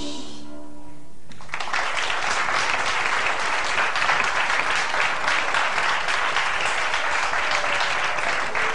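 The last violin notes fade out, then an audience breaks into applause about a second and a half in: dense, steady clapping.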